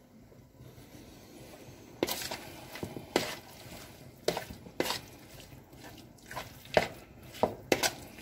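A metal spoon clinking and scraping against a plastic mixing bowl as raw chicken pieces are stirred through their marinade. The sharp, irregular clacks begin about two seconds in.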